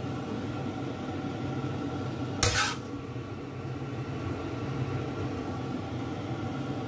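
A single sharp clatter of a utensil against a dish about two and a half seconds in, over a steady kitchen hum.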